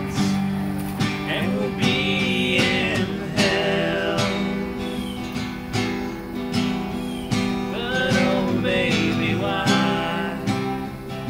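Country-style song with strummed acoustic guitar and a steady beat.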